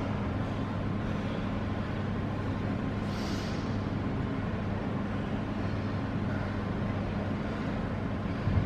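A steady low mechanical hum under an even hiss, with a brief higher hiss about three seconds in and a short low thump near the end.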